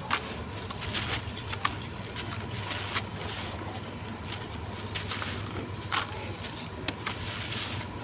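Sand-cement blocks crumbling in irregular, sharp, gritty crunches and crackles, over a steady low hum.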